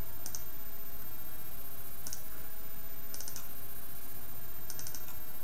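Clicking at a computer: four short clusters of two to four quick clicks each, over a steady background hiss.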